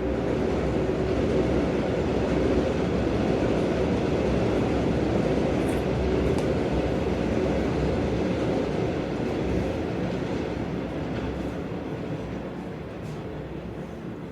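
A train passing, a steady heavy noise with a faint hum in it, fading gradually over the last few seconds as it moves away.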